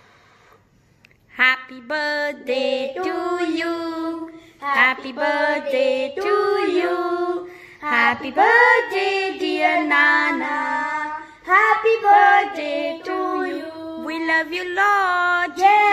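Two boys singing together in children's voices, holding long notes; the singing starts about a second and a half in.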